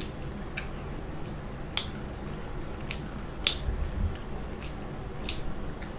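Close-up eating sounds: wet mouth clicks and smacks of people chewing fried chicken, a handful of short sharp clicks spread through a few seconds.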